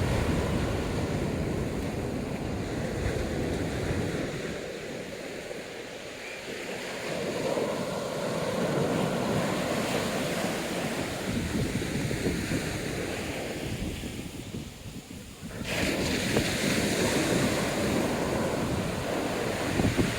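Ocean surf breaking and washing up the beach, with wind buffeting the microphone. The surf swells and ebbs, louder about halfway through and again near the end after a sudden rise.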